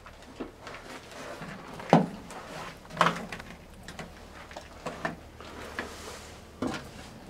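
Irregular knocks and clunks of a person moving through a locomotive's cramped interior: footsteps and bumps against fittings, the two loudest about two and three seconds in.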